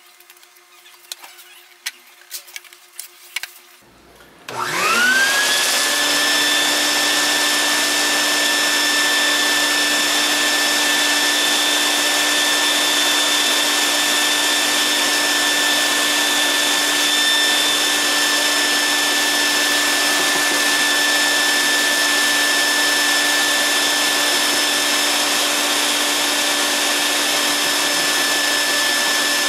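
A few light knocks, then a shop vac switched on about four seconds in, its whine rising as the motor spins up and then running steadily. It is drawing air through a covered plastic box to winnow the chaff off freshly roasted coffee beans.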